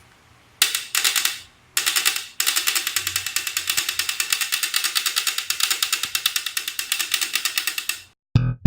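Folding mechanism of a Xiaomi Mijia M365 electric scooter creaking: a fast, rattling train of clicks, first in three short bursts, then continuously for several seconds before it cuts off. The creak comes from play in the stem's folding joint, which tightening its screws does not cure. Music starts near the end.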